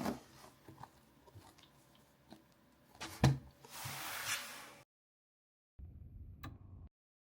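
Hands handling sealed Pokémon card product on a table: small taps and clicks, a sharp knock about three seconds in, then about a second of rustling before the sound cuts out.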